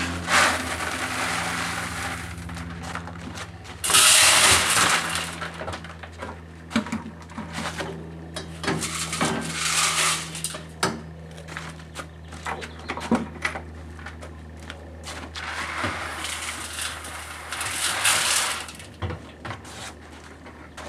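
Crushed stone (3/8-inch gravel) scooped from buckets and poured into a Harbor Freight 3.5 cu ft cement mixer's turning drum: rattling, rushing pours in several bursts, the loudest about four seconds in, with scattered clicks of stones, over the steady hum of the running mixer.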